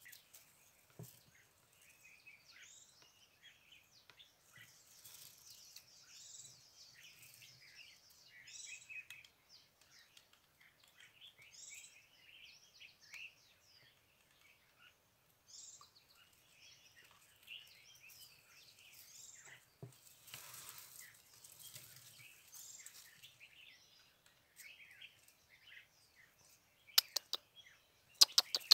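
Many small birds chirping and calling, a steady stream of short high calls. Near the end come a few sharp, loud clicks, from the PCP air rifle being fired and worked.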